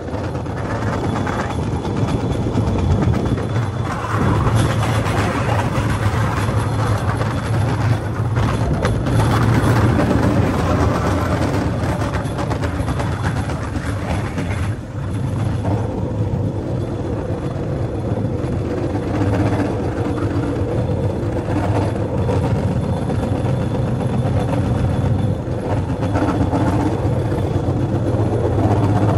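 A Cambodian bamboo train (lory) running steadily along the rails, its small engine giving a continuous low hum over the rough noise of the ride.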